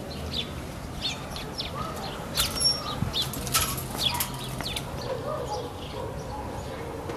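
Small birds chirping in many short, quick calls, busiest and loudest between about two and four seconds in.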